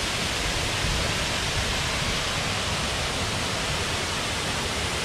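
Waterfall: a steady, even rush of falling water with no breaks.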